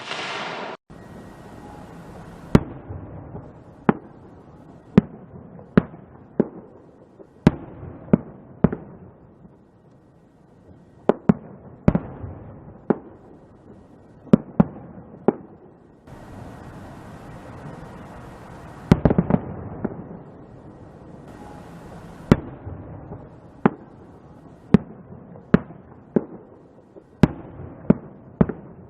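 Fireworks and firecrackers going off: sharp bangs at uneven intervals, often one every second or two, with a dense run of crackling about nineteen seconds in. A loud hiss sounds in the first second and cuts off sharply.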